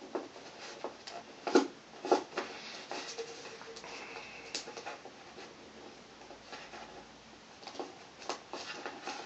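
Origami paper being folded and creased by hand on a ukulele's wooden body, making irregular crinkles, rustles and light taps.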